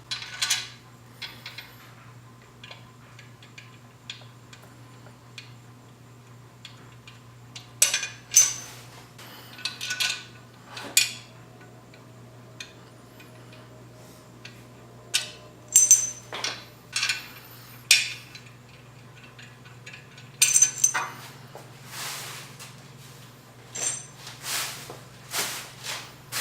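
Metal tools and engine parts clinking and tapping as they are handled during an engine rebuild: scattered sharp clinks, a few of them ringing, over a steady low hum.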